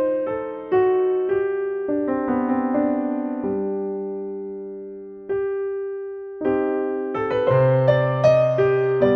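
Background piano music: a slow melody of struck, decaying notes that thins to one ringing note about five seconds in, then a new phrase begins with a low bass note.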